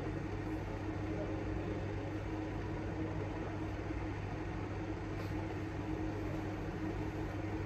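Steady low hum with a constant hiss from a running machine, unchanging throughout.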